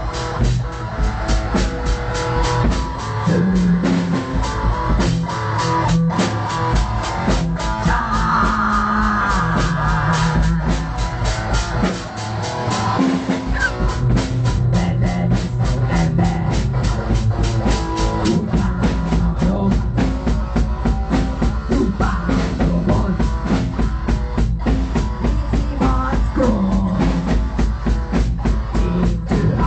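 Metal song played by a band: drum kit pounding out a fast, steady beat under guitar and bass. The lowest bass drops out briefly about twelve seconds in.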